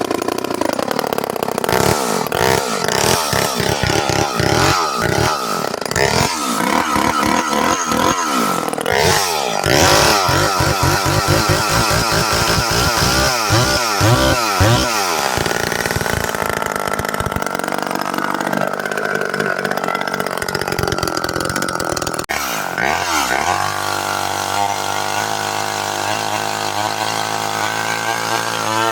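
Aldens 25DA two-stroke chainsaw, a rebadged Poulan with a stack muffler, running and being revved up and down over and over. About 23 seconds in it drops back and settles into a steady idle.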